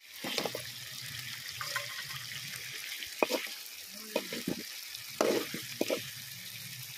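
Spicy chicken curry sizzling in a metal kadai as chicken pieces are stirred into it. A steel spoon scrapes and clinks against the pan several times.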